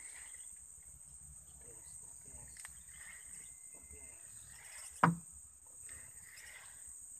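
Steady high-pitched drone of insects, with one sharp knock about five seconds in.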